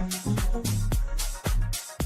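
Instrumental dance music with a steady beat of drum hits, about two a second, over a bass line.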